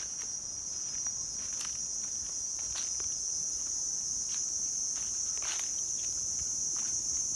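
A steady, high-pitched drone of insects, with footsteps on dry fallen leaves crackling about once a second.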